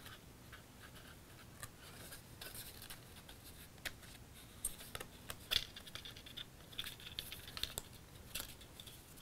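Cardstock being handled and pressed together: quiet scratching and rustling with scattered small clicks as glued paper tabs are pushed into place against the sides of a paper box.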